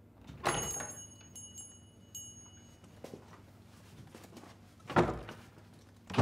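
Door opening with a small bell on it jingling, about half a second in, its high ringing dying away over about two seconds. Then two short sharp sounds near the end.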